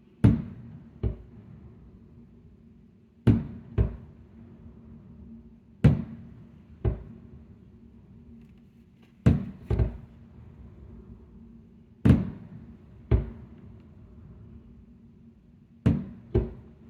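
Aerial fireworks shells going off as sharp booms, mostly in pairs half a second to a second apart, a new pair about every three seconds, over a steady low background hum.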